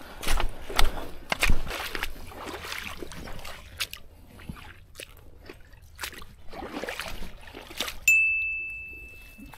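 Feet wading and splashing through shallow seawater, with several louder splashes in the first two seconds. About eight seconds in, a single high bell-like ding rings out and fades over about a second and a half.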